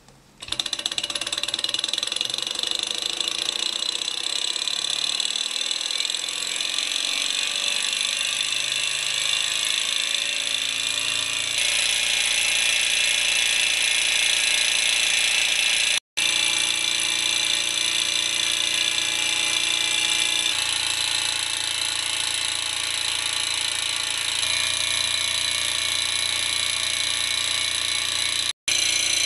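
Small hot-air Stirling engine built from old hard-drive parts running steadily on a burner flame: a continuous mechanical whirring of its pistons and flywheel. The sound cuts out briefly twice.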